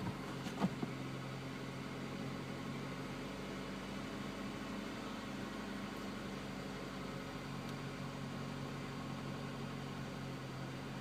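1999 Honda CR-V four-cylinder engine idling with a steady hum, with a couple of faint clicks about half a second in. The car has a failing fuel pump, but the engine runs evenly here with no revving.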